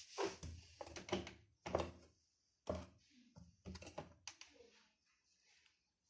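Porthole door of a Candy CS 105 TXT R front-loading washing machine being handled: a string of knocks, thunks and clicks, about six over four seconds, with no motor running.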